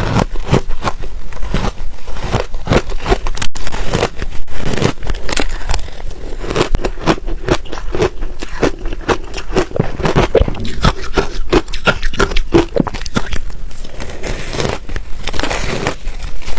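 Ice being bitten and chewed close to the microphone, a dense run of crisp, crackling crunches with no let-up.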